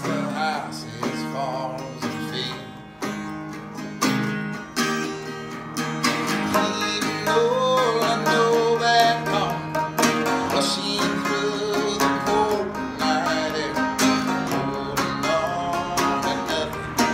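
Five-string banjo and acoustic guitar playing together, a picked bluegrass-style instrumental passage with a steady rhythm.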